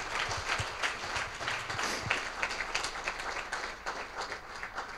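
Audience applauding: many hands clapping at once, dying away just before the end.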